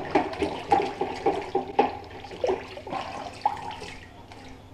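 Kitchen tap running into a stainless steel sink as split lobster halves are rinsed under it, the water splashing irregularly off the shell and hands. It gets quieter toward the end.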